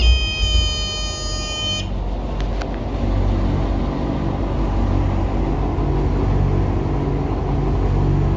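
The yacht's twin inboard engines idling steadily just after starting, a low rumble with a slow, regular throb. A high-pitched helm alarm buzzer sounds over them for the first couple of seconds, then cuts off.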